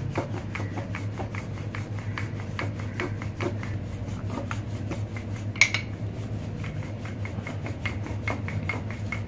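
Rolling pin rolling out paratha dough on a stone countertop: a steady run of light ticks, about five a second, with one sharper knock about halfway through.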